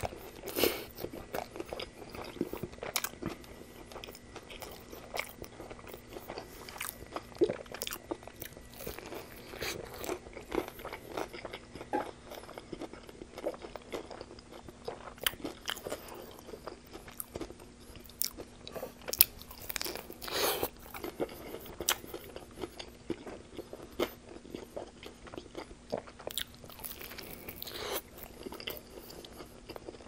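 Close-miked biting and chewing of a fried-chicken tortilla wrap: a steady run of crunchy bites and moist chewing, with a few louder crunches about two thirds of the way through. A faint steady hum runs underneath.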